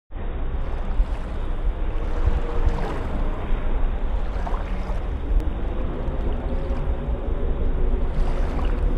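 Shallow surf washing over wet sand and draining back, a steady rush of water with a low wind rumble on the microphone.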